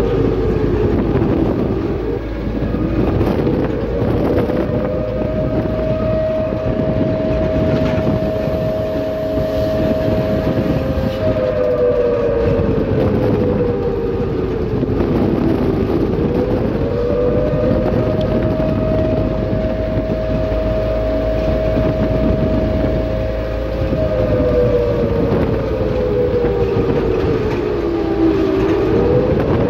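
Ride inside a moving vehicle: a steady low rumble under a whining engine tone that rises in pitch, holds for several seconds, then slowly sinks, repeating about every 12 seconds as the vehicle speeds up and slows.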